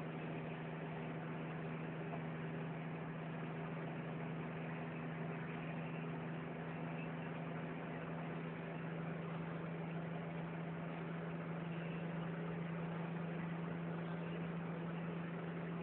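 Car cruising, heard from inside the cabin: a steady low engine hum with tyre and road noise.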